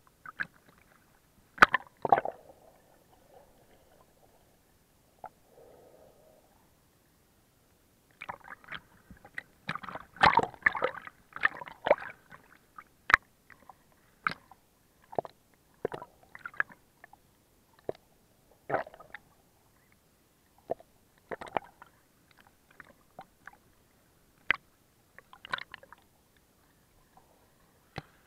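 Water splashing and gurgling around a waterproof camera moved at and just under the sea surface by a swimming snorkeler: irregular short splashes and knocks with quiet gaps, busiest about eight to thirteen seconds in.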